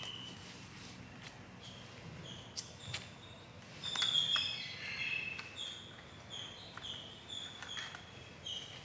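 Faint bird chirps, a run of short high chirps about twice a second from about four seconds in, with a few light clicks of cut-out letters being handled in a wooden movable-alphabet box.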